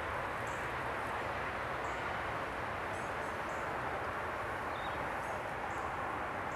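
Steady outdoor background roar with faint, short, high bird chirps every second or so.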